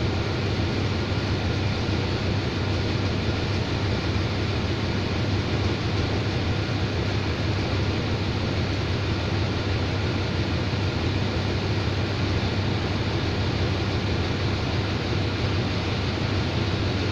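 Diesel locomotive of a standing passenger express train idling: a steady low hum with a hiss over it that does not change.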